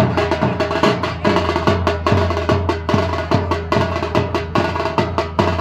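Percussion-led music: fast, sharp drum strokes in a quick steady rhythm, with a sustained tone held above them.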